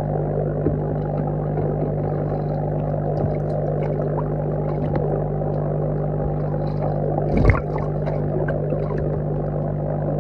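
Muffled underwater noise in a goldfish tub: a steady low hum and the bubbling of an aerator's air stream, with scattered small clicks and one sharper knock about seven and a half seconds in.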